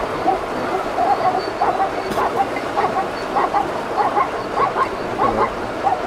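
A herd of zebras calling: many short, barking yelps overlapping, several a second.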